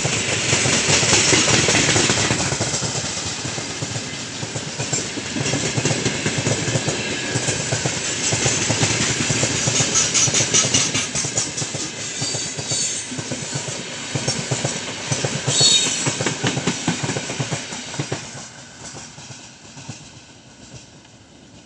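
Freight train of gondola cars passing close by at speed: a steady rumble and rattle of wheels with rapid clicking over the rail joints, and a brief high squeal about sixteen seconds in. The sound fades from about eighteen seconds in as the end of the train goes by.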